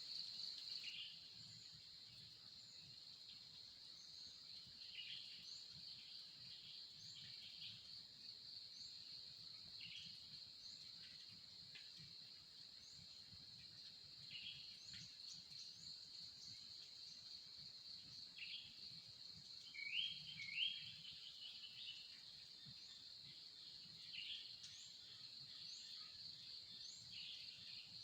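Faint forest morning ambience: a steady high-pitched insect drone with many short bird calls and chirps scattered over it, the loudest pair about two-thirds of the way through.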